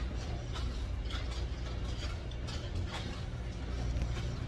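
Steady low hum of a ship's machinery and ventilation in a below-deck corridor, with faint, irregular soft taps of footsteps as someone walks.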